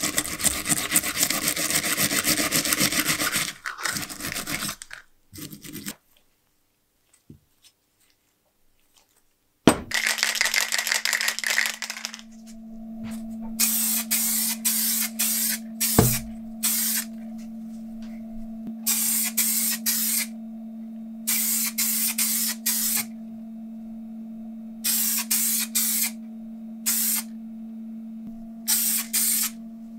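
A brush scrubbing the metal sharpener shell at first. Then, after a silent pause, paint spraying onto the hanging shell in many separate short hissing bursts over a steady low hum, with one sharp knock midway.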